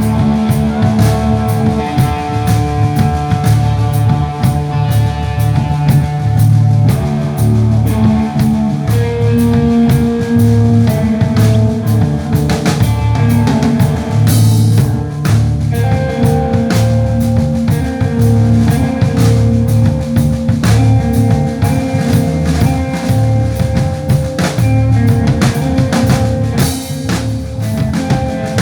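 A band playing rock music: a drum kit keeps a steady beat under bass and guitar.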